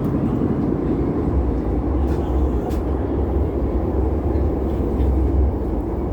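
MTR Tuen Ma Line C-Train under way, giving a steady, deep rumbling running noise, with a couple of faint clicks about two seconds in.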